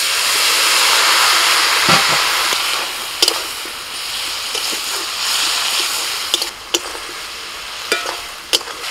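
Water poured into a hot kadai of oily, spiced vegetables, hissing loudly for the first couple of seconds, then easing into a steady sizzle as the mixture is stirred with a spatula, with a few sharp taps of the spatula on the pan.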